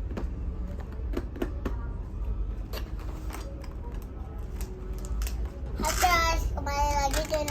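Scattered light clicks and knocks over a steady low hum, then a child's high voice starts talking about six seconds in.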